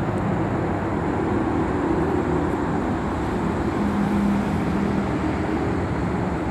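Road traffic: a steady rush of passing vehicles, with a low engine drone that shifts in pitch.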